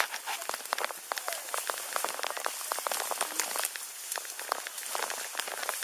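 Dry grass and brush rustling and crackling as it brushes past while a hiker walks through it: a dense, irregular patter of small crackles.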